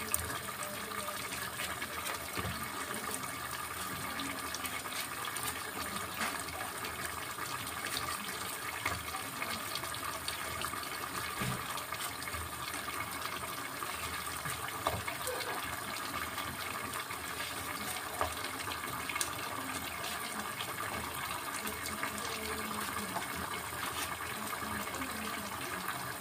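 Pot of broth simmering on a gas stove: a steady watery hiss with scattered small clicks and pops.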